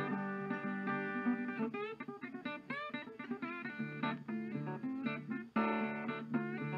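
Background music: an acoustic guitar playing plucked and strummed notes, with a few notes sliding in pitch about two seconds in.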